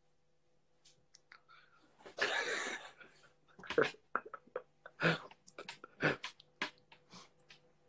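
A man's breathy laughter: a long exhaled burst about two seconds in, then a run of short breathy laughs.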